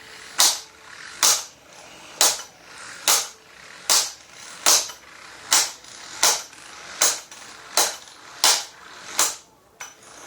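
Kawasaki 12V DC impact wrench hammering on a lug nut, its motor whirring between sharp hammer blows that come about once a second, about a dozen in all. It is running in the tightening direction, so the nut does not come off.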